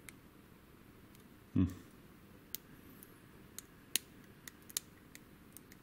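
Lock pick working the pin stack of a WILKA pin-tumbler euro cylinder under light tension: small, scattered metallic clicks and ticks, several in the second half. A brief low sound about a second and a half in.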